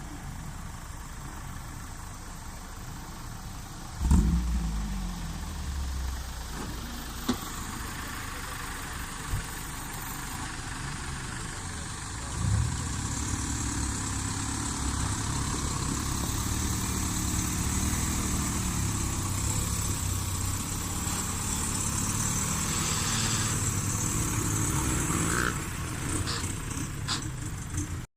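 Off-road vehicle engines running: a sudden loud burst of engine noise about four seconds in, then the engine noise swells again about twelve seconds in and stays louder and steady until near the end.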